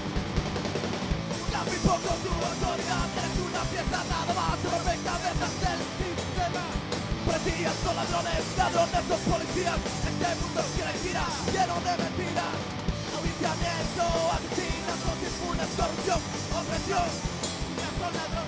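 Live punk rock band playing: electric guitars, bass guitar and drum kit together at a steady, driving level.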